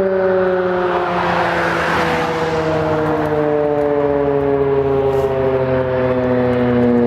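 ACA P-15 outdoor warning siren sounding a steady chord of several tones at once, its pitch sagging slowly. About two seconds in, a swell of road noise from a passing vehicle rises over it and fades.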